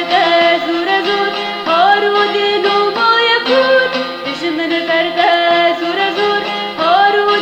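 Kurdish folk-style song music: a pitched melody line that slides up into notes, played or sung over a steady low drone.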